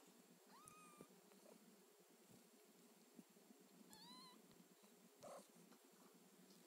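A kitten mewing twice, about three and a half seconds apart: faint, high-pitched mews, the first rising and then held, the second dipping and then rising. A short soft noise follows a little after the second mew.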